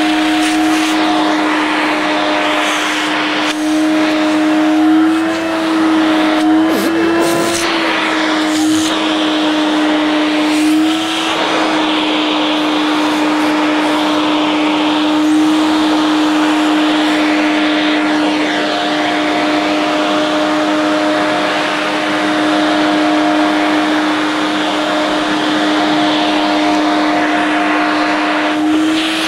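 Vacuum cleaner running steadily: a constant motor hum over a rushing airflow hiss, its pitch wavering slightly a few times.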